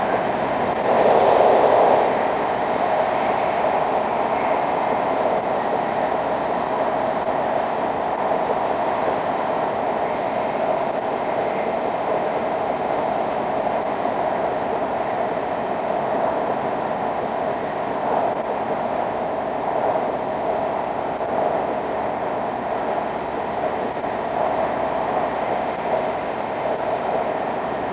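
Steady running noise of an E5 series Shinkansen heard from inside the passenger car while it runs through a tunnel, with a brief louder swell about a second in.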